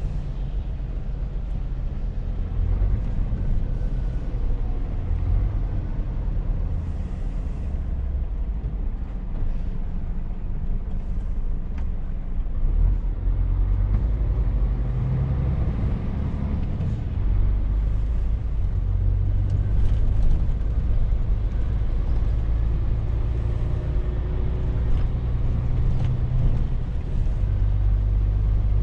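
Scania truck's diesel engine running under way, heard inside the cab: a low drone whose pitch shifts a few times as the truck changes speed, with road noise over it.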